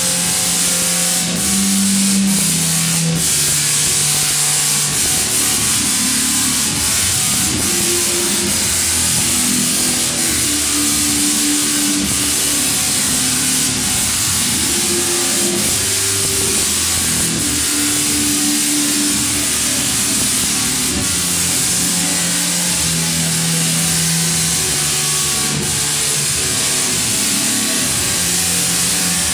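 Large Tesla coil firing long arcs into a hand-held rod: a loud, harsh buzzing crackle. Its pitch steps from note to note, so that the coil plays a tune.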